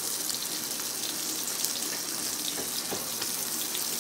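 Boneless chicken breasts sizzling in oil in a stainless steel skillet: a steady frying hiss with small crackles, and a light knock about three seconds in.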